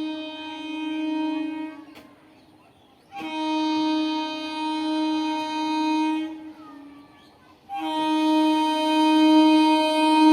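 EMU local train's air horn sounding in long, steady blasts at one pitch: one stops about two seconds in, another sounds from about three to six seconds, and a third starts near eight seconds in.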